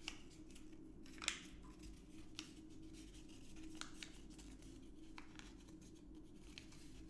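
A sheet of paper being folded and creased by hand: faint scattered crinkles and snaps, the sharpest about a second in.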